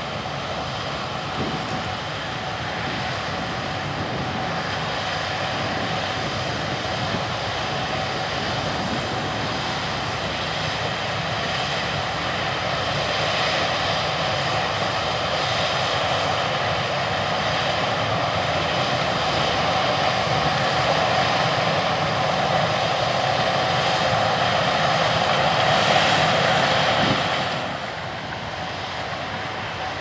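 Gleaner S77 corn combine harvesting and unloading on the go into a grain cart pulled by a Challenger tractor running alongside: steady engine and threshing noise with a steady whine. It grows louder as the machines come closer, then drops suddenly near the end.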